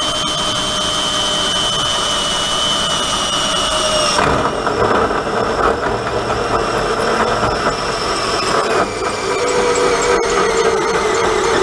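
Cordless drill with a hole saw cutting through a metal mount plate. A steady high whine runs until about four seconds in, then the pitch drops and a louder, rougher grinding sets in as the cutter bites.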